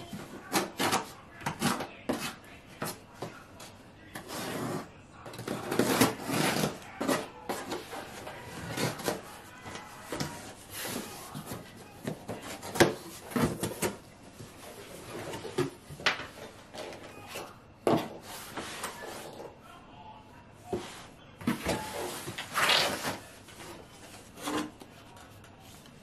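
Cardboard shipping box being opened by hand: packing tape picked at and torn from the seam, the flaps pulled up, and cardboard scraping and rubbing, in a string of short rips and rustles with a couple of longer tearing stretches.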